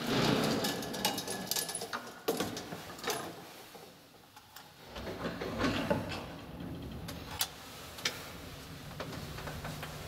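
Collapsible scissor gate of an old cage lift rattling shut and latching, followed by a few sharp clicks as the floor button is pressed. About five seconds in, the lift's drive starts with a steady low hum as the car begins to travel.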